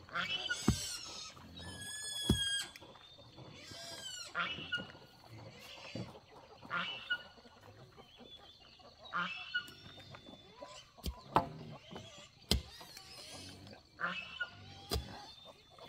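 Pigs squealing and calling in short bursts every couple of seconds, with several sharp knocks in between.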